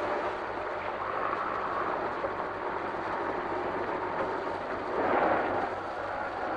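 Steady street and traffic noise around a stopped city bus, heard on a 1950s film soundtrack, swelling louder about five seconds in.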